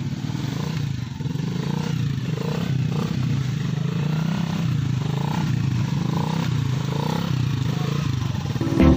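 Dirt bike engine running at low revs, its pitch rising and falling with light throttle.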